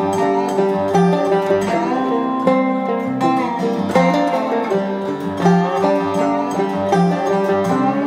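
Background music: an instrumental tune of quick plucked string notes.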